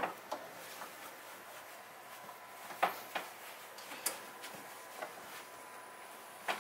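Soft, scattered taps and rustles of a heavy hoodie being handled, flipped and smoothed flat on a heat press platen, over faint room hiss.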